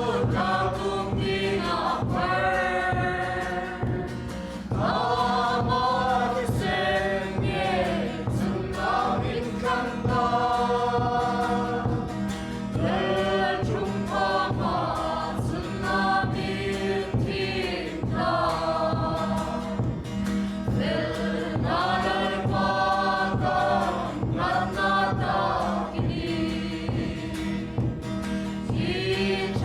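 A choir singing a gospel hymn over musical accompaniment, in phrases of a second or two.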